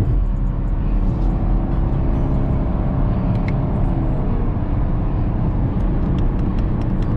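Car engine running steadily, with music playing at the same time.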